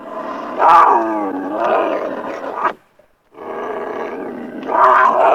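Beast growl sound effects: a long, rough, pitched growl that bends in pitch and stops near the three-second mark, then after a short gap a second growl that swells louder toward the end.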